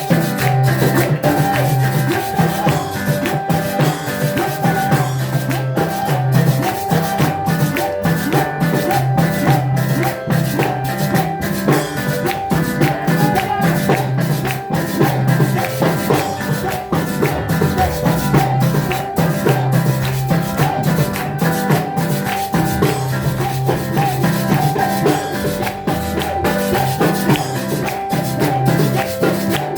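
Music with a shaker and drums keeping a steady beat over sustained low bass notes.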